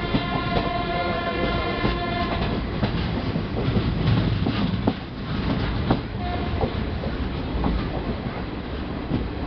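Express passenger train running at speed, heard from aboard, its wheels clattering over rail joints and points. A train horn sounds one held note for about the first two and a half seconds, and briefly again about six seconds in.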